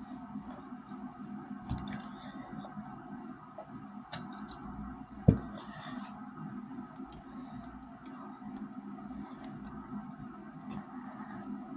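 Wet mouth and chewing sounds of someone eating macaroni and cheese, with scattered small clicks and one sharp knock about five seconds in, over a steady low hum.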